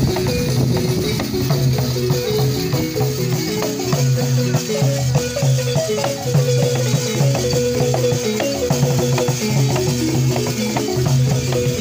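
Live dance music: a wooden xylophone plays a fast repeating pattern of struck notes on a few fixed pitches, over continuous shaking rattles.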